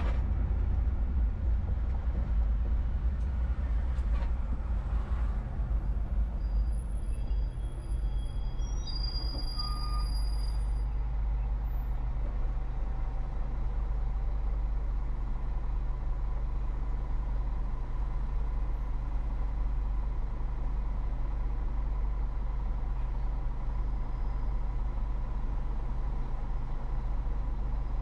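A car driving through city traffic, heard as a steady low rumble of engine and road noise. There is a short knock right at the start, and a few brief high-pitched tones a quarter to a third of the way through.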